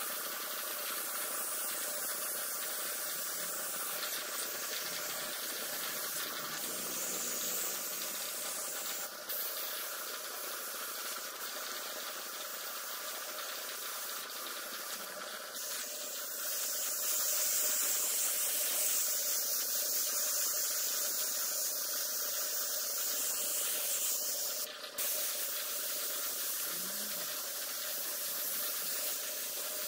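Compressed-air gravity-feed spray gun spraying paint: a continuous hiss of air and atomised paint, a little louder in the middle stretch, with a faint steady hum underneath.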